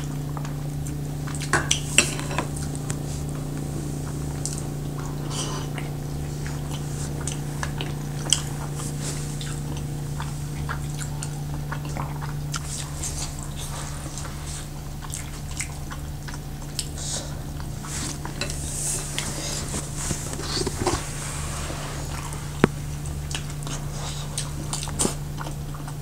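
Cutlery and dishes clinking with scattered small clicks and eating noises during a meal, over a steady low hum.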